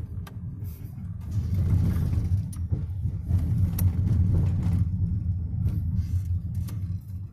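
Vehicle driving along a road: a steady low rumble of engine and tyres that grows louder about a second in, with a couple of sharp clicks or knocks.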